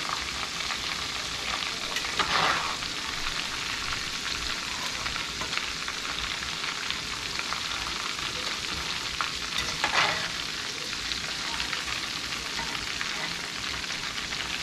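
Flour-breaded blue catfish pieces deep-frying in hot corn oil in a cast-iron skillet: a steady crackling sizzle, with two brief louder surges about two seconds in and near ten seconds.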